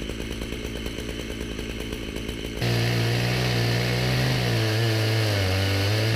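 Two-stroke chainsaw in an Alaskan mill running steadily while ripping a deodar cedar log into slabs. About two and a half seconds in, the sound jumps abruptly to a louder, more even engine note, whose pitch sags a little toward the end.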